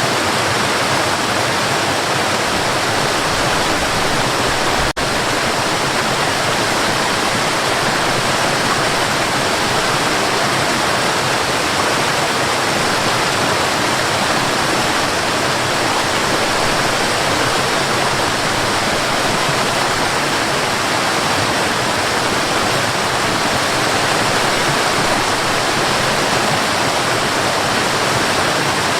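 Mountain river running steadily, a dense, even rush of water. There is a split-second dropout about five seconds in.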